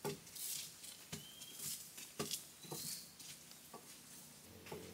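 Rustling of a bundle of leafy branches being handled, with scattered light knocks and clicks about once a second, as plant material is gathered for an herbal elephant medicine.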